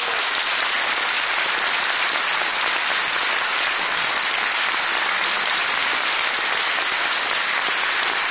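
Audience applauding, steady dense clapping with hands clapping close by.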